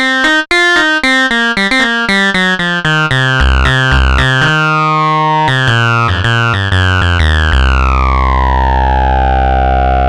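Software synthesizer from a Native Instruments Maschine expansion playing a quick run of notes, several a second, then holding one low, bass-heavy note from about three-quarters of the way through.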